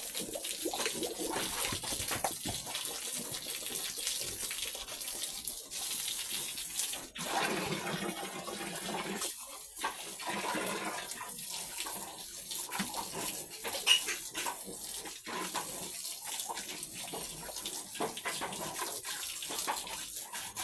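Water running and splashing as pigs are washed down in their pen, with scattered knocks.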